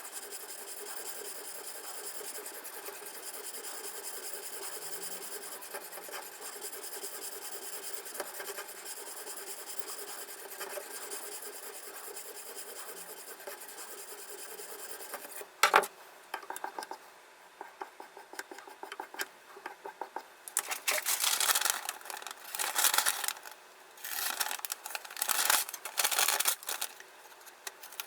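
A steady hiss for about the first half, cut off by a sharp click. Then a diamond sharpening bar on a guided knife sharpener rasps along the blade of a Victorinox folding knife in a series of separate strokes.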